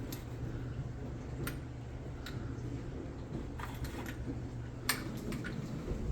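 A running kitchen appliance hums steadily and low, with a handful of light, sharp clicks spread through it.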